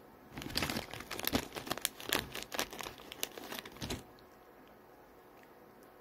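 Plastic snack bag of salt and pepper pistachios crinkling and rustling as it is handled, a dense run of sharp crackles that stops suddenly about four seconds in.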